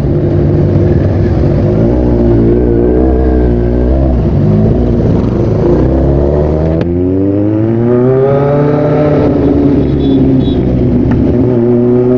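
Kawasaki Z1000's inline-four engine under way, revving up and down, with a gear change about seven seconds in followed by a rising rev that levels off into steady running.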